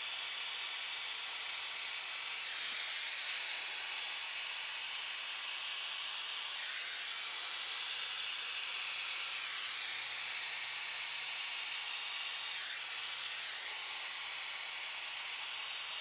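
Butane cordless soldering iron hissing steadily as hot gas blows from its vent, shrinking heat-shrink tubing over a soldered wire splice. The hiss wavers a little now and then.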